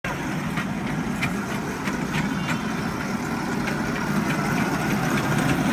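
Miniature kiddie ride train running round its circular steel track: a steady low rumble with scattered sharp clicks and clacks.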